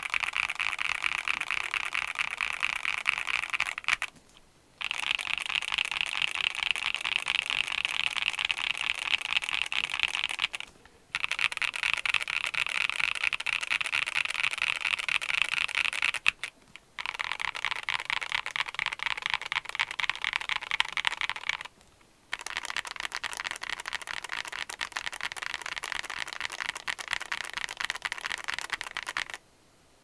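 Fast, continuous typing on a Monsgeek M2 mechanical keyboard with a polycarbonate plate, Domikey Deep Sea linear switches and Domikey Fading Cherry-profile keycaps: a dense stream of keystroke clacks, broken by four short pauses and stopping shortly before the end.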